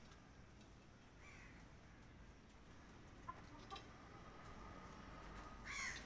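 Near-quiet poultry yard with a few faint chicken sounds: a soft call about a second in, and a short cluck near the end, the loudest sound. A faint thin steady tone runs for about two seconds before the cluck.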